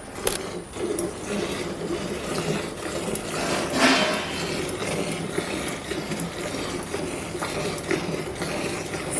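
A buffalo being milked by hand: quick, uneven spurts of milk squirting into a pail, with one louder hissing spurt a little under four seconds in.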